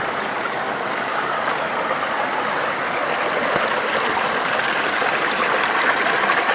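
Steady rushing of water over rock from small waterfalls and rapids.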